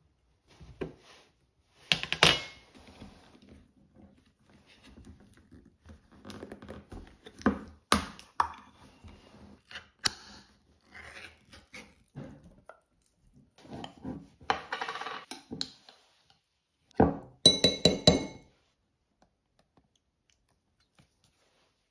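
Kitchen food-prep sounds: scattered knocks and clinks of dishes and utensils, with a louder run of ringing clinks about seventeen seconds in.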